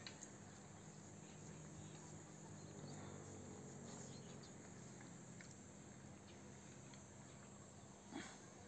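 Near silence: a faint steady outdoor background with a few soft ticks from a dog licking at food on concrete, and a brief soft bump near the end.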